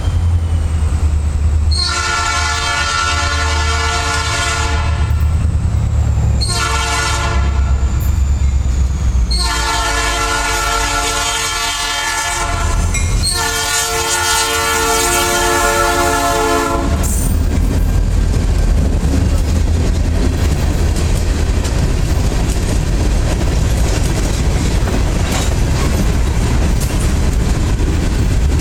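Norfolk Southern SD40-2 diesel locomotive sounding its air horn in a series of long blasts and one short blast, the signal for a road crossing, over the low rumble of its engine. After about 17 seconds the horn stops and the passing train's engine and wheels on the rails carry on as a steady rumble with clickety-clack.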